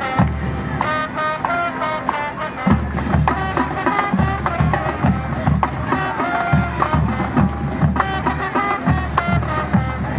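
A high school marching band playing live, heard from the stands: the brass carry the tune over the drum line. The bass drums and percussion come in with a steady beat a little under three seconds in.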